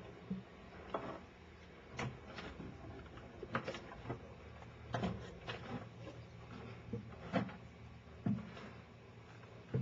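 Footsteps, roughly one a second at an uneven walking pace, over a faint steady low hum.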